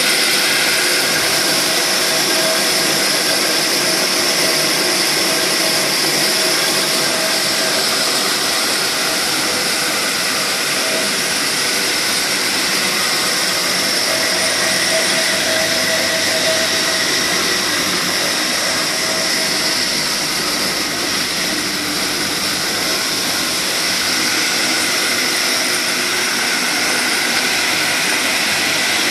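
A 7.5 hp Hammond buffing and polishing lathe running steadily at speed. Its motor gives a constant hum and whine with no load on the wheels.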